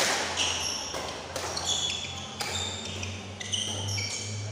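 Badminton rackets smacking the shuttlecock several times in a fast doubles rally, with many short high squeaks of players' shoes on the court surface. A steady low hum runs underneath.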